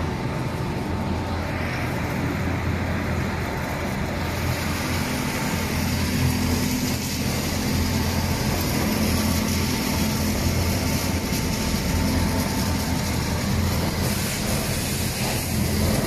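Four-station stainless-steel tube buffing machine running: a steady low motor hum with the hiss of its spinning buffing wheels, which grows louder a few seconds in.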